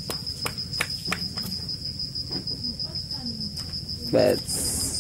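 An insect chirring in a steady, high, evenly pulsing trill, with a few faint clicks and a brief vocal sound about four seconds in.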